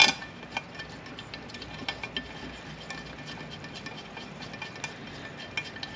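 A sharp metal clink, then faint, scattered small clicks and light clinks of metal parts and bolts being handled.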